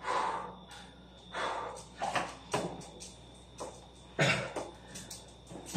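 A person breathing out hard and sharply during Navy SEAL burpees, about six forceful breaths at uneven intervals, one of them with a short grunt.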